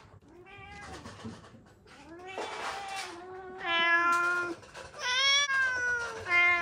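Several domestic cats meowing one after another, some calls overlapping and raspy, louder and closer together in the second half. They are clamouring for food.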